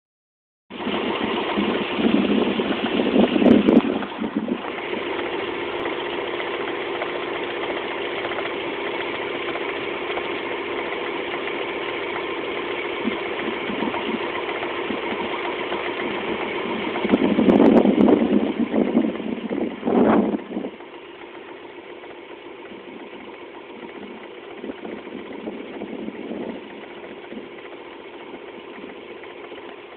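Rover 200's 1.4-litre K-series four-cylinder engine running with a knocking noise. It grows louder twice, a few seconds in and again past the middle, then runs quieter for the last third.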